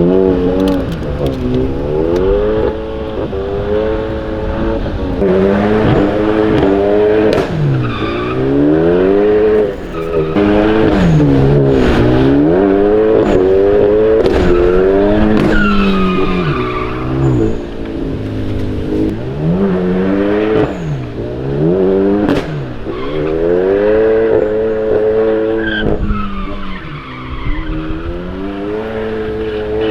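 Car engine revving hard up and down again and again as the car is thrown into drifts, with brief tyre squeals here and there.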